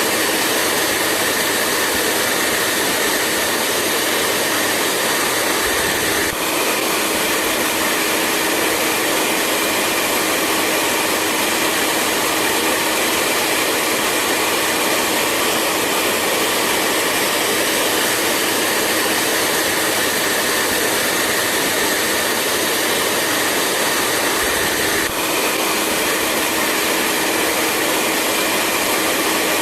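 Hair dryer running steadily: a constant rushing blow of air with a low motor hum underneath, briefly dipping twice.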